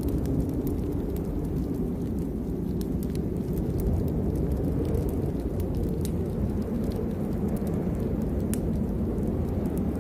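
Nature-sounds ambience of storm and fire: a steady low rumble with scattered sharp crackles and pops a few times a second.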